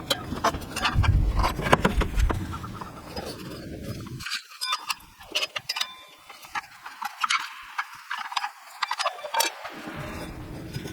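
A string of irregular light clicks and knocks, with a low rumble under them during the first few seconds.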